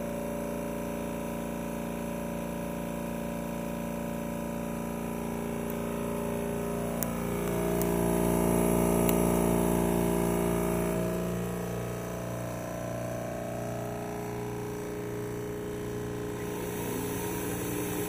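Chem-Dry portable carpet-extraction machine running: a steady motor hum of several tones, rising in pitch and getting louder for a few seconds in the middle, then settling back down.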